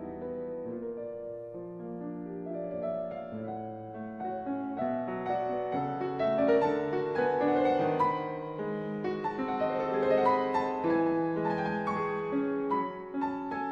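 Slow instrumental piano music, with overlapping notes that change about once a second.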